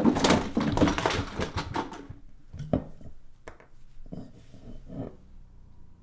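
About two seconds of dense rustling and scuffling, then a few separate light knocks and clinks of a wine bottle and glasses handled on a table.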